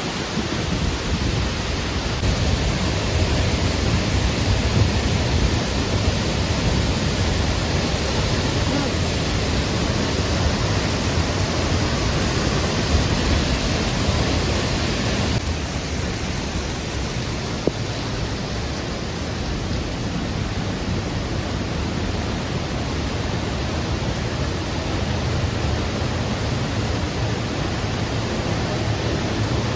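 Waterfall crashing steadily: an even, loud rushing roar with a strong low rumble. The high hiss drops a little about halfway through.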